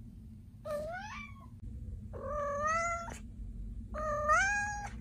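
Long-haired colorpoint cat meowing three times, each meow drawn out for about a second and rising in pitch, over a faint low background hum.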